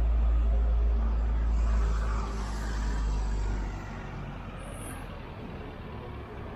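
Street traffic with a vehicle passing. A loud, deep rumble cuts in suddenly at the start and drops away about four seconds in.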